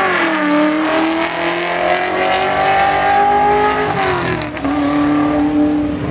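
Fox-body Mustang street car accelerating hard down the drag strip: the engine note climbs through a gear, drops at an upshift about four seconds in, then holds steady.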